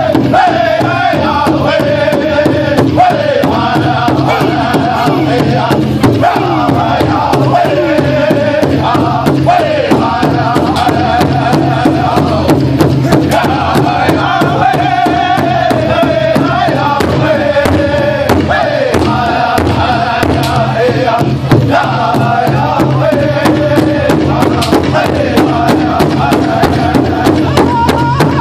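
Powwow drum group singing together while beating one large powwow drum in a steady, unison beat. The high sung phrases repeatedly fall in pitch.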